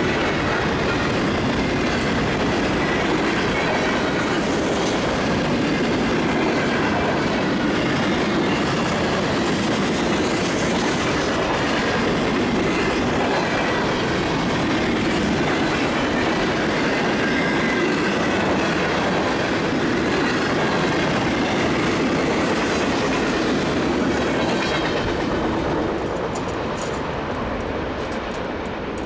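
Freight train cars rolling past at close range: a steady rumble and clatter of steel wheels on the rails, with faint high wheel squeal drifting in pitch. About 26 seconds in, the last cars clear and the sound falls away.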